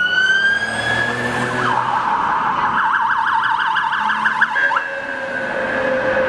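Police car siren: a rising wail that switches about two seconds in to a rapid yelp, then about five seconds in to a steady held tone.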